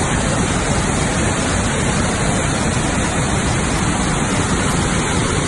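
Steady, loud rush of water from a large waterfall, an even noise from deep to high pitches without a break.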